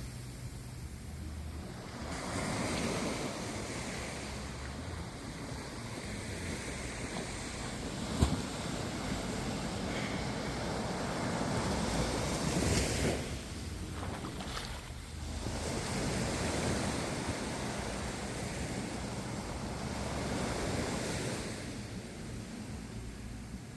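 Ocean waves washing in and out in slow swells, with wind rumbling on the microphone. A single sharp click comes about eight seconds in.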